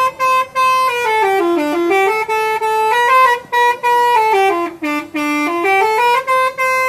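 Indonesian 'telolet' musical bus horn playing a tune of short stepped notes, climbing to a high note and stepping back down twice, with brief breaks between phrases.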